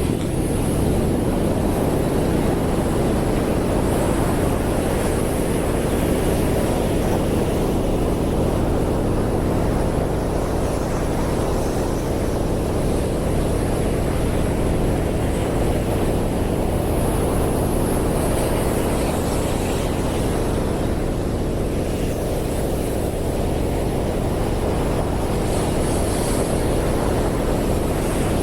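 Atlantic Ocean surf breaking on a sandy beach: a steady, deep roar of waves with no distinct gaps between breakers.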